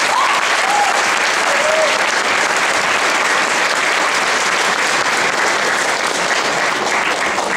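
Audience applauding in a hall, swelling quickly at the start and then holding steady, with a few short calls from the crowd in the first two seconds.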